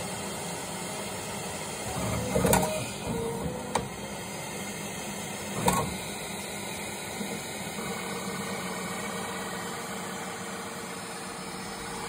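Bambu Lab P1S 3D printer running through its nozzle cooldown and self-cleaning, with fans running steadily and stepper motors driving the toolhead. Three sharp knocks come in the first half, and a faint higher whine joins about two-thirds of the way through.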